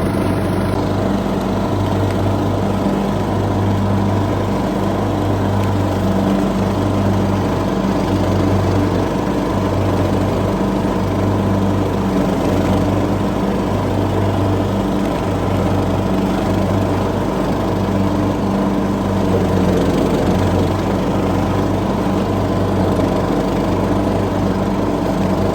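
Lawn mower engine running steadily, a low hum that swells and dips about once a second.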